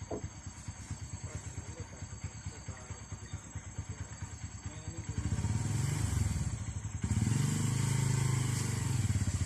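A small engine idling with an even, rapid putter, then revving up about five seconds in and running louder and steadier.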